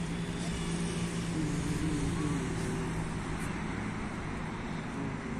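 Steady city traffic hum, with faint distant voices.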